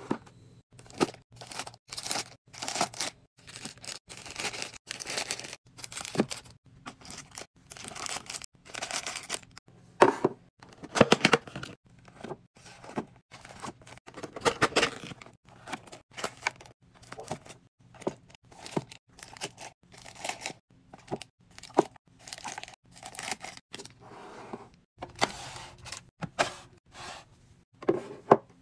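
Plastic and paper snack packets crinkling and rustling as they are handled and set into clear acrylic organizer bins, with many short clacks and knocks in quick, uneven succession.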